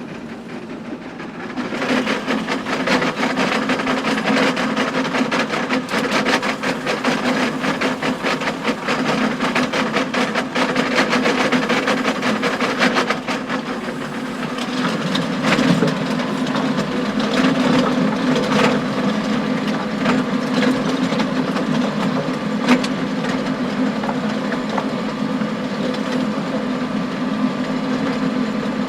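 John Deere tractor engine running steadily under load while pulling a power harrow, with frequent clattering knocks of stones striking the harrow tines. It gets louder about a second and a half in, and there is one sharper bang near the end.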